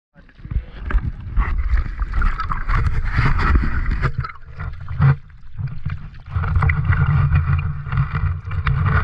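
Sea water sloshing and splashing against an action camera held at the surface, with a low rumble of water and wind on the microphone; it eases off briefly in the middle and picks up again.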